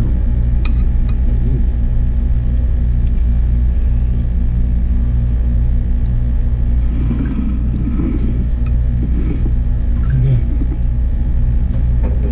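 Steady low mechanical hum, with a light click about half a second in and faint murmuring voices in the background.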